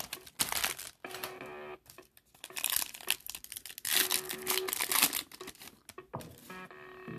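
Foil trading-card pack wrapper crinkling and tearing as it is ripped open by hand, in several bursts of rustling.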